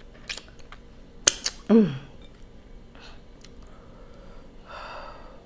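Close-up eating sounds of a person eating boiled prawns: a few sharp clicks and smacks in the first two seconds, a short falling "mm" hum about two seconds in, and a soft breath near the end.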